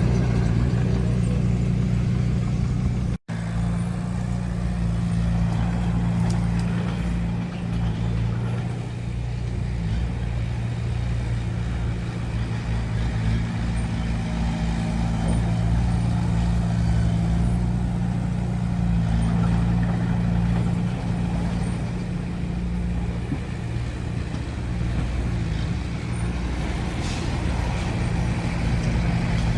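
Diesel engine of a heavy earthmoving machine running steadily with a deep, even drone. The sound cuts out for an instant about three seconds in.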